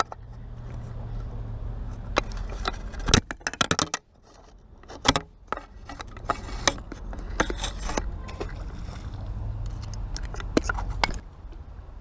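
Close-up handling noises, a scattered series of sharp clicks and scrapes, as a small puffer fish is unhooked by hand, over a steady low rumble of wind on the microphone.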